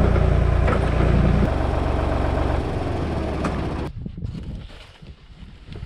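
An engine running steadily, dropping in speed in two steps, then shutting down about four seconds in.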